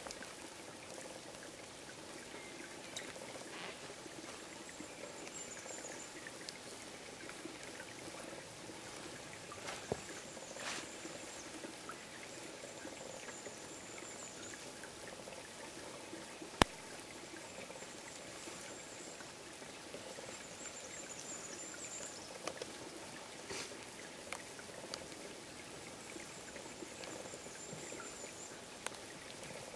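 Steady rain falling and dripping, with faint short high chirps recurring every few seconds and one sharp click about halfway through.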